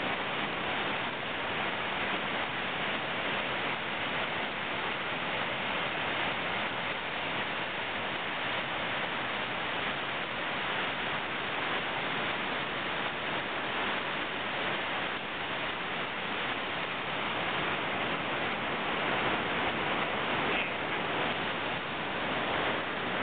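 Steady rush of whitewater in a large river rapid.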